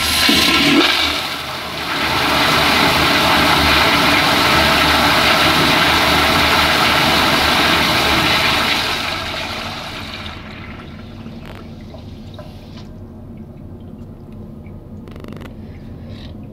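Eljer toilet flushing: a very loud rush of water that starts suddenly, holds steady for about eight seconds and dies away about ten seconds in. A quieter trickle follows as the bowl refills.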